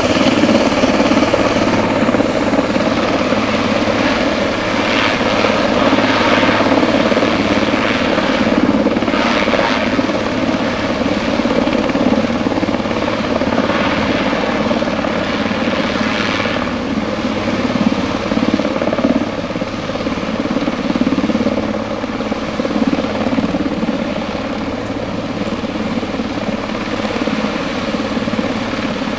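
Eurocopter AS532 Cougar twin-turbine military helicopter running close by: a steady loud drone of rotor and turbine noise with a constant low hum, and several brief swells of hiss in the first half.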